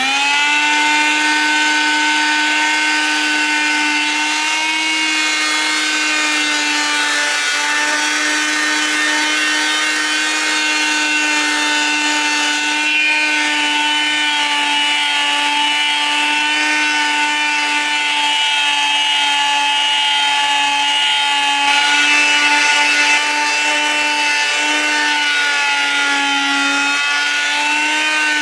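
Electric angle grinder with a polishing pad running at steady speed, a continuous motor whine with the pad rubbing along a chrome exhaust pipe as it buffs off blue heat discoloration.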